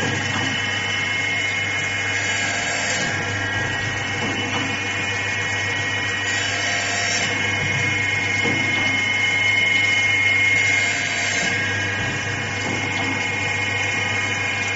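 Automatic saw blade sharpening machine running: a steady motor whine with a low hum, and a short grinding hiss about every four seconds as the wheel grinds one tooth after another.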